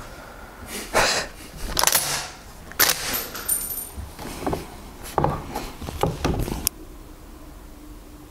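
Schmidt-Rubin 96/11 rifle being handled before a shot: a string of separate metallic clicks and knocks over the first six or seven seconds as the rear sight is raised to 600 m and the straight-pull bolt is worked.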